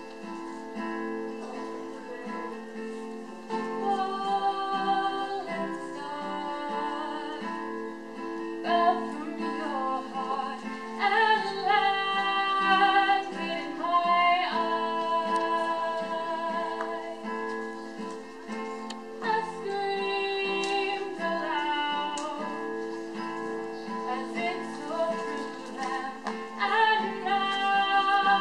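A young woman sings solo over her own acoustic guitar, which plays throughout. Her voice comes in about four seconds in.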